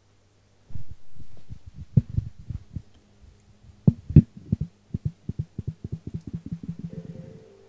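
Handling noise from a handheld microphone: irregular low thumps and knocks, with a loud pair about four seconds in, as it is moved about and set down on a counter. A fast run of low pulses follows and stops just before the end, over a steady electrical hum. A steady low tone comes in near the end.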